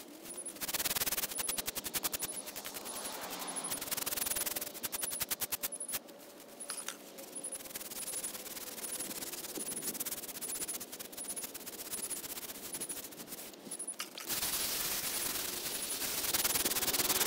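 Bristle hand brush scrubbing the face of an old headstone in quick back-and-forth strokes. The strokes come in fast runs with short pauses, and a louder, steadier stretch of scrubbing comes near the end.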